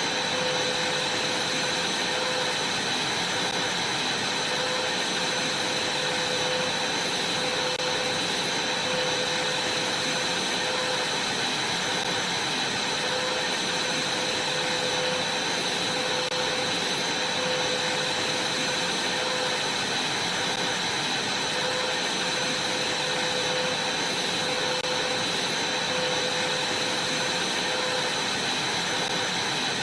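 Vacuum cleaner running steadily, a constant rushing whine with a slightly wavering hum underneath.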